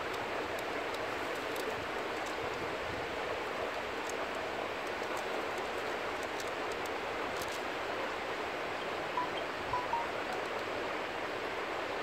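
Six Mile Water river flowing, a steady rush of water. A few short chirps come through about nine to ten seconds in.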